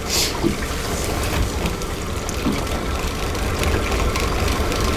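Water sloshing and trickling around a small fishing boat, over a steady low rumble.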